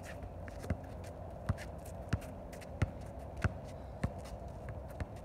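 Basketball dribbled on an asphalt driveway: about seven bounces at a steady pace, roughly one every two-thirds of a second, with footsteps shuffling on the pavement.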